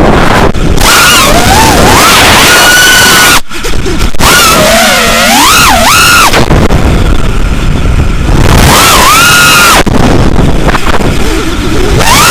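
Motor of an FPV model plane whining loudly through heavy wind rush on the onboard camera's microphone. The pitch rises and falls with the throttle, and the whine drops away to wind noise for a couple of seconds in the middle.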